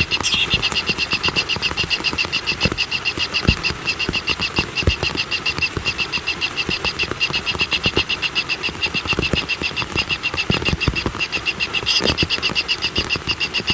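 Outdoor animal chorus of fast, evenly repeated pulsing calls, steady and unbroken, with a short falling whistle just after the start and a few low knocks scattered through.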